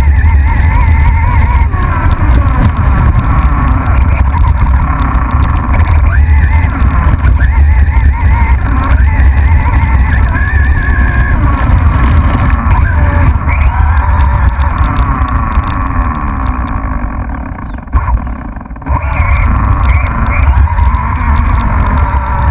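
Radio-controlled car driving, heard from a microphone mounted on it. Heavy rumble from wind and vibration sits under a motor whine that rises and falls with the throttle. The car eases off briefly about three-quarters of the way through.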